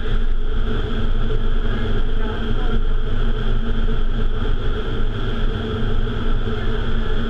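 Indoor vertical wind tunnel running: a loud, steady rush of air through the flight chamber buffeting the camera microphone, with a constant hum from the tunnel's fans underneath.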